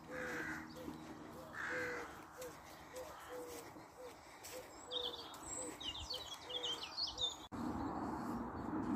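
Crows cawing twice, with small birds chirping about five seconds in and a run of short, evenly repeated notes underneath. Near the end the sound changes abruptly to a louder steady low noise.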